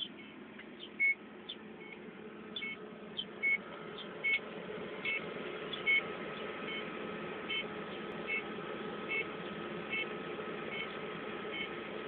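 Short high-pitched chirps repeating, irregular at first and then evenly about once every 0.8 seconds. Under them is a steady equipment hum and a thin steady whine that starts about a second in.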